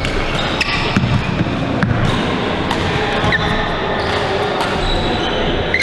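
Badminton rallies on several courts: sharp racket-on-shuttlecock hits every second or so, a couple of brief shoe squeaks on the court floor, and a steady echoing hall din.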